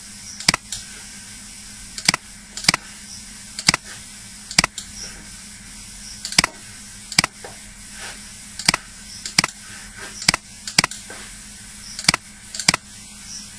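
Computer mouse clicking: sharp single clicks and quick pairs at irregular intervals, over a steady faint hiss and low hum.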